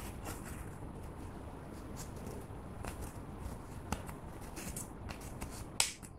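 A plastic spatula scraping cream makeup out of a plastic heart-shaped compact: light scratching with scattered small clicks, the loudest click near the end.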